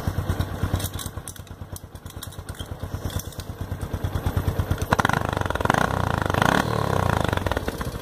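Honda Pop 110i's single-cylinder four-stroke engine idling, heard at the exhaust outlet, with an aluminium drink can held in the muffler's tailpipe to change the exhaust note. The exhaust gets louder and fuller about five seconds in.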